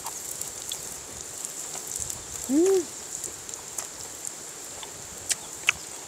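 Food sizzling on a griddle pan over a portable gas camp burner: a steady hiss with small crackles and occasional clicks of tongs. A short hummed 'mm' from a person rises and falls about two and a half seconds in.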